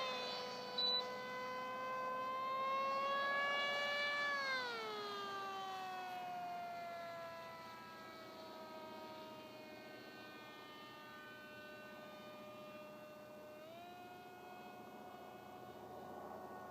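Motor of a radio-controlled foam speed airplane whining in flight. The pitch drops steeply about four to five seconds in as the plane passes or throttles back, then the sound fades as it flies off, and rises again briefly near the end. A short sharp sound comes about a second in.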